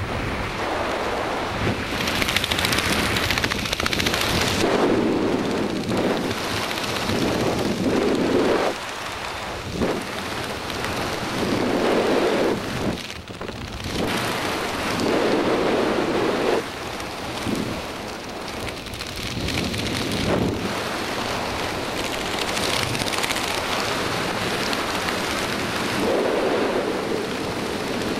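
Wind rushing over a helmet camera's microphone during a parachute descent under an open canopy. It gusts in uneven surges every couple of seconds.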